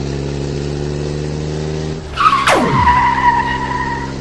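Car engine running steadily. About two seconds in, tyres screech, with a fast high-to-low swoop, and the squeal holds for about two seconds.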